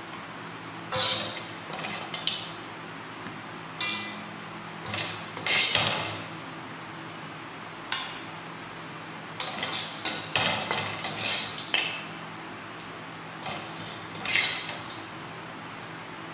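Spatula scraping and clinking against a wok and a ceramic plate as stir-fried pork ribs are scooped out, in about a dozen irregular strokes.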